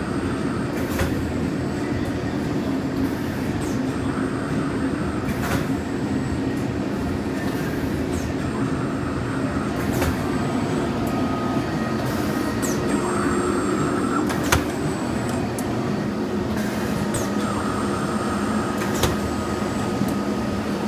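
Automatic carousel screen-printing press running steadily, with a sharp clack about every four and a half seconds as the carousel indexes, and short high hisses now and then over a constant mechanical hum.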